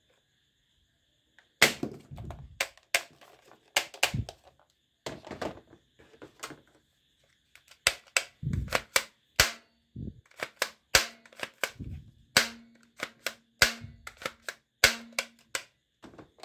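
Plastic toy guns clicking and clacking as they are handled and knocked against each other and the table. The sharp plastic clicks come at an irregular pace, some with a dull knock.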